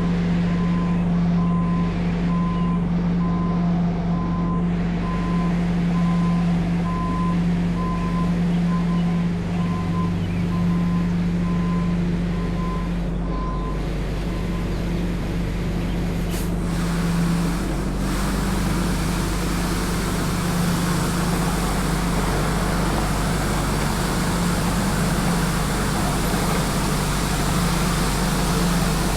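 Tymco 435 regenerative-air street sweeper working, with a steady low hum from its engine and blower. A backup alarm beeps regularly, about one and a half beeps a second, and stops a little before halfway through, after which a steady hiss grows louder.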